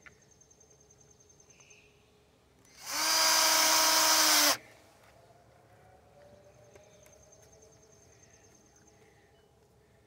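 Cordless drill-driver driving a screw into the wooden frame: one run of about a second and a half, three seconds in, spinning up quickly to a steady pitch and cutting off suddenly.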